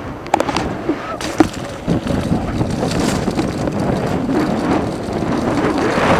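Wind buffeting a helmet-mounted microphone while an Iron Horse Azure Sport mountain bike rides over rough ground, with a few sharp knocks and rattles in the first second and a half as it leaves the pavement for the dirt trail.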